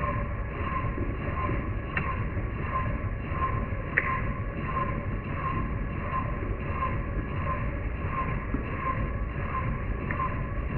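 Milling machine running a large single-insert fly cutter with a carbide insert, taking a facing cut across a steel plate. The insert strikes the work about twice a second over the steady noise of the mill, with a couple of sharp clicks along the way.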